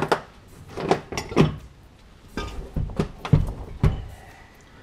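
Metal engine parts being handled and set down on a workbench: a string of about eight clunks and knocks in quick succession, which die away near the end.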